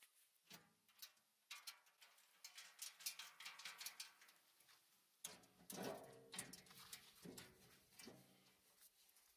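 Faint clicks and taps of small bolts, nuts and the steel hopper panels being handled while the shredder's hopper is fitted together. A faint low pitched sound comes in about halfway through.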